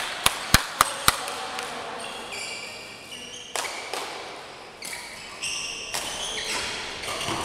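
A quick run of five sharp taps in the first second, then a string of short, high-pitched squeaks from court shoes skidding on the hall's sports floor.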